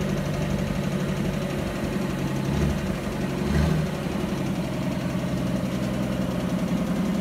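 1957 Willys truck engine idling steadily, with two brief louder surges about two and a half and three and a half seconds in.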